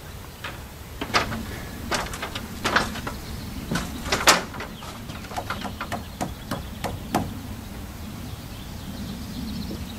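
Irregular wooden knocks and bumps, about a dozen over several seconds, as a lumber rafter is shifted and seated with its bird's mouth against the top plate; they stop a few seconds before the end.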